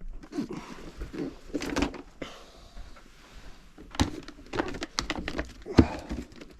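Cardboard firework cake boxes being handled and shifted: rustling with a series of knocks and thumps, the sharpest about four seconds in and again near six seconds.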